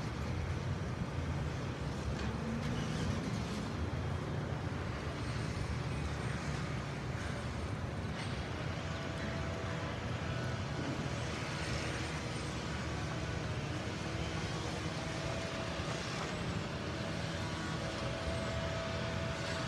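Steady outdoor city din of road traffic, a low rumble with no clear single event, joined about halfway through by a faint steady hum.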